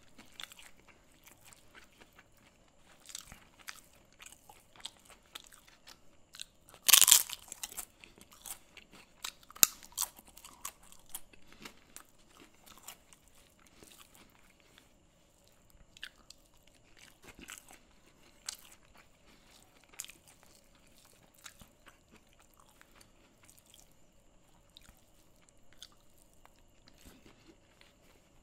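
Close-miked eating by hand: fingers working rice and curry and steady chewing, with soft wet clicks throughout and one loud crunch about seven seconds in.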